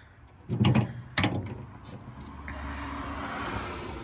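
Distributor cap being pressed back onto the distributor of a Ford flathead V8: two sharp clicks about half a second apart as it seats. From about two seconds in, a steady low rumble with a hiss.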